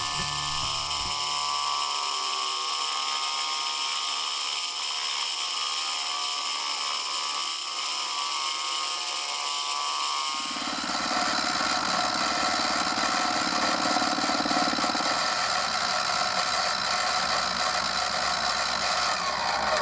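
Small milling machine running with its end mill cutting a slot in a metal workpiece: a steady machine whine mixed with cutting noise. About ten seconds in the sound shifts and becomes a little louder and fuller.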